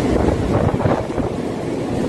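Mumbai suburban electric local train rolling alongside the platform: a steady low rumble of carriages and wheels on the rails, with wind buffeting the microphone.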